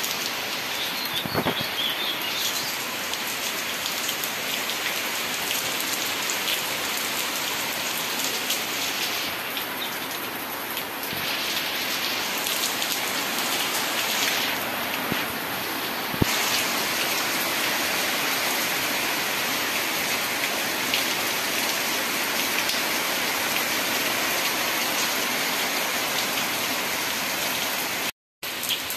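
Steady rain falling, a dense even hiss with one sharp tap about halfway through.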